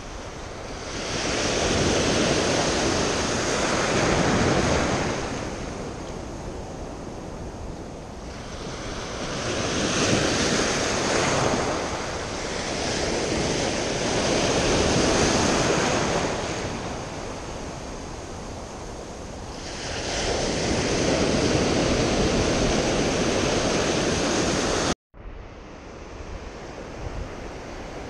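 Ocean surf breaking and washing in at the waterline in three long surges several seconds apart, each swelling and falling away. About 25 seconds in, the sound cuts off abruptly and comes back as quieter surf.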